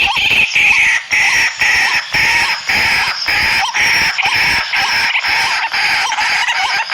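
Birds, apparently chickens, calling repeatedly over a dense, steady chirring chorus, with many quick knocks underneath; it all cuts off abruptly at the end.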